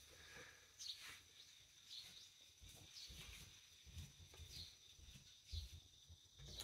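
Near silence: quiet room tone with faint, short high chirps about once a second and soft low bumps.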